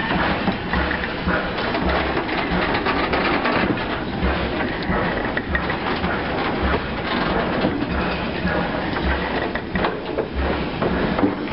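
Vintage goods wagons rolling slowly past, their wheels clattering on the rails with repeated low thumps as they run over the rail joints.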